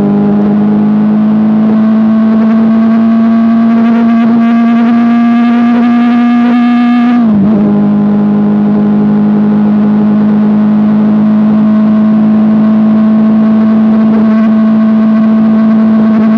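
Kawasaki Ninja ZX-6R inline-four engine running steadily at high revs through an Akrapovic exhaust while riding. The pitch creeps slowly up, dips sharply for a moment about seven seconds in, then holds steady again.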